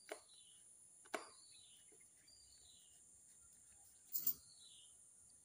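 Light clicks of a screwdriver working the air-filter cover screws of a grass-cutter engine: two faint ones and a louder clack about four seconds in. A bird repeats a short falling chirp several times in the background.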